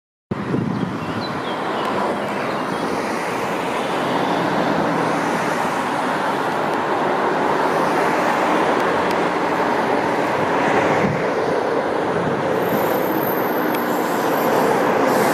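Steady rolling noise of a container train hauled by a Siemens Vectron electric locomotive as it approaches, growing slightly louder. A faint high whine joins in about twelve seconds in.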